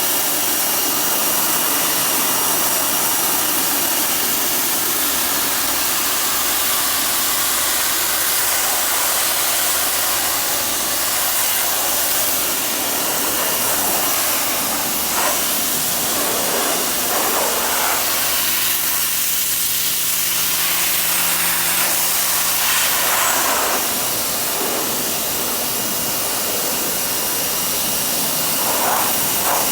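Pressure washer running: a steady hiss of high-pressure water spray, with an engine's hum underneath.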